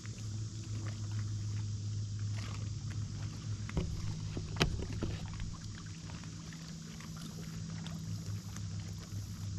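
Boat motor running with a steady low hum, with a few sharp clicks and knocks over it, the loudest about halfway through.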